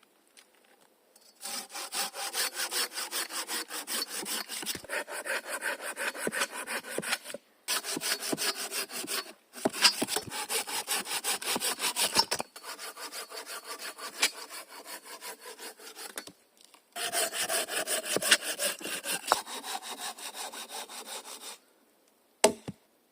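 Hand saw cutting through wood in quick back-and-forth strokes, in several bouts with short pauses between them; a single knock near the end.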